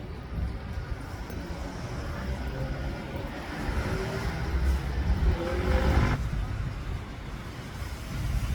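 City street traffic: a motor vehicle passes close, its engine note rising in pitch as it gets louder, and then the sound cuts off abruptly about six seconds in, leaving a low rumble.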